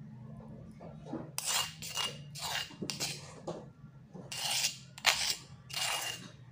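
Metal spoon scraping ground turmeric, garlic and candlenut paste off a stone mortar (cobek) and its pestle: a run of short, gritty scrapes, roughly one a second, some with a faint metallic ring.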